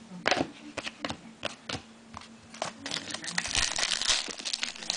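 Trading cards being handled, with light clicks and slides, then, from a little past halfway, a dense crinkling of a foil card-pack wrapper being handled and opened.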